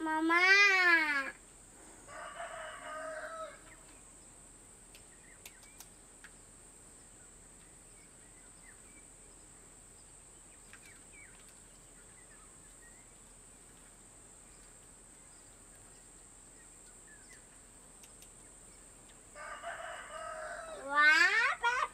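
A rooster crowing: one loud rising-and-falling crow at the start, with more calls near the end. Faint clicks sound in the quiet between them.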